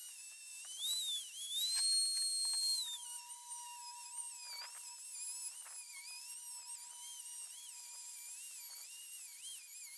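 Small high-speed rotary tool with a cutoff wheel grinding through the steel bearing retainer ring on a Dana 44 axle shaft. It makes a high-pitched whine that wavers up and down as the wheel bites. Near two seconds in, the whine briefly holds at a steady higher pitch, which is the loudest part.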